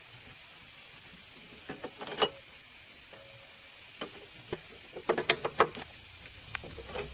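Scattered metallic clinks and knocks of tools and parts being handled during mechanical repair work, with a quick cluster of them about five seconds in, some ringing briefly.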